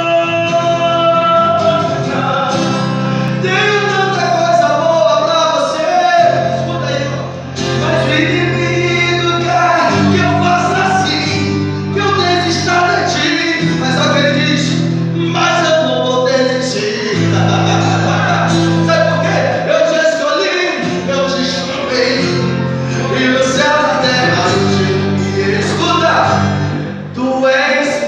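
Gospel song: voices singing a melody over band accompaniment with sustained bass chords that change every few seconds.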